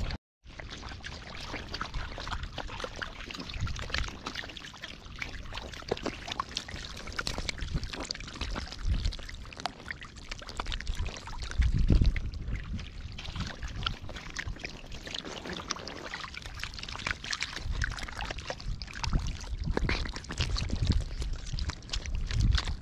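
Wet splashing, slapping and squelching of many catfish writhing together in shallow muddy water, with a few louder low thumps, the strongest about halfway through.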